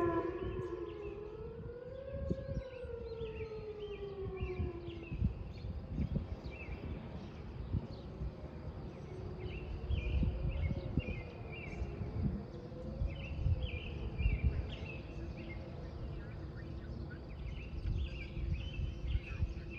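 Whelen 2900 electronic outdoor warning sirens winding down at the end of a test: the main tone falls in pitch and fades out over the first five seconds. A fainter siren tone wavering up and down lingers on, returning faintly near the middle.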